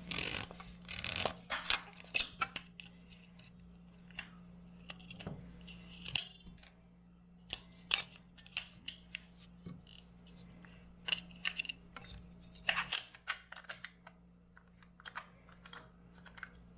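Irregular small clicks and clacks of AAA batteries being pried out of and snapped into the plastic battery compartment of an electric makeup brush spinner's handle, replacing batteries that have run flat. A faint steady hum sits underneath and stops about 13 seconds in.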